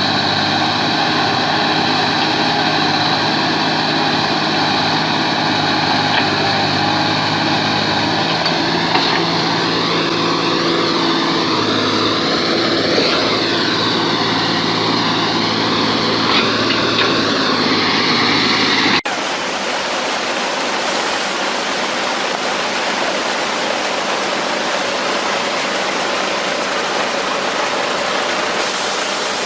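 Heavy truck engine running steadily, then an abrupt cut about two-thirds through to a different, noisier engine sound.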